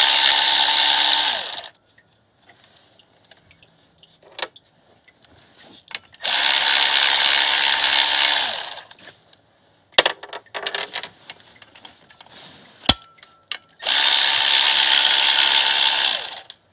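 A handheld power tool spinning out the 10 mm water pump pulley bolts, in three runs of two to three seconds each. Each run is a steady whine that winds down as it stops, with small metallic clicks and knocks between the runs.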